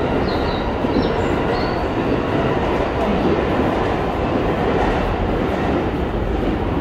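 Train running on the station tracks, a steady loud rail noise, with a few faint high squeaks in the first two seconds.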